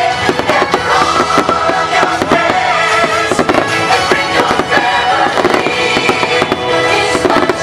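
Fireworks shells bursting and crackling in quick succession, with many sharp bangs over loud accompanying music.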